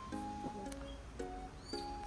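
Background music: a light plucked-string tune with notes and chords struck about twice a second.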